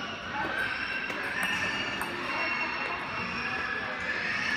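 Steady background hubbub of a table tennis hall: indistinct overlapping voices, with no clear ball strikes.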